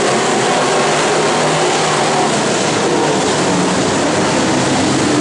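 Several dirt-track stock car engines running hard in a race, a loud continuous blend of engines whose pitch drifts up and down as the cars accelerate through the turns and pass.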